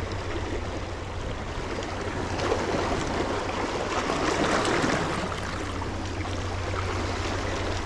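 Steady rush of sea water washing, with a low rumble underneath.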